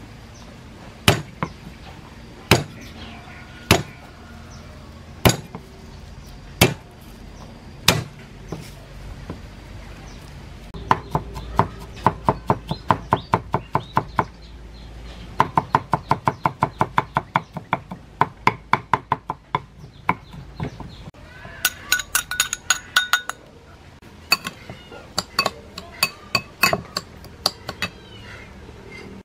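A steel cleaver chopping garlic on a wooden chopping board: a handful of single heavy knocks, then fast runs of mincing strokes at about five a second. A short run of ringing metallic clinks comes in the middle.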